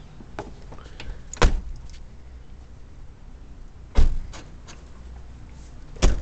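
Three car doors slammed shut, about two and a half seconds apart, over a low steady rumble.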